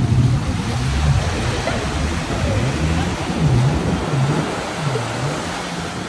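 Sea surf washing on the beach under steady wind noise on the microphone, with a low hum that wavers up and down in pitch and fades after about four seconds.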